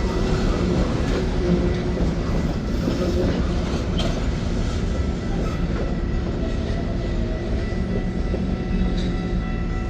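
Freight train rolling past, its cars' wheels on the rail joints making a steady rumbling clickety-clack, with faint steady high ringing tones and a couple of sharp clicks.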